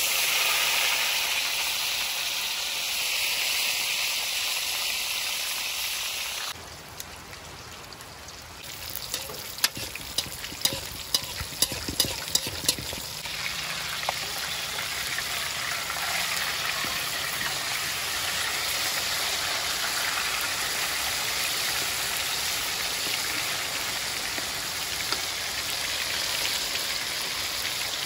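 Fish sizzling as it deep-fries in hot oil in a wok. In the middle, a metal spatula knocks and scrapes against the wok in a run of sharp clicks, then the steady sizzle goes on.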